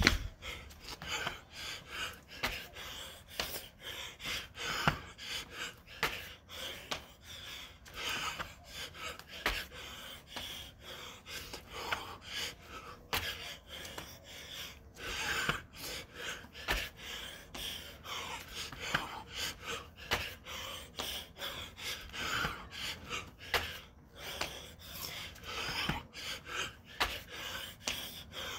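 A man breathing hard and gasping over and over during a set of burpees, with scattered light knocks from the exercise.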